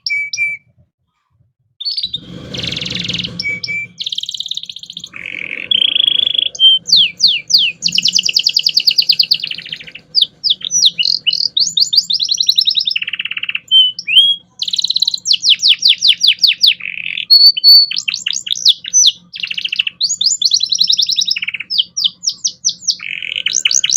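Domestic canary singing a long, varied song of rapid trills and rolled phrases, switching pitch and tempo every second or two. There is a brief pause about a second in, followed by a coarse, buzzy phrase.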